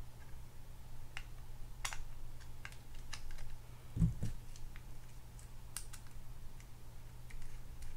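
Small, sharp clicks and taps of metal screwdriver tips against the parts of an opened Penn Spinfisher 5500SS spinning reel as the main gear and shaft area is pried at, with one dull thump about four seconds in as a screwdriver is set down on the table.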